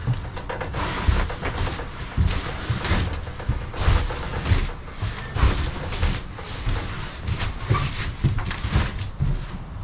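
A large cardboard box holding a power recliner being tipped and dragged across a cargo trailer's floor: irregular scrapes and dull thumps, one or two a second.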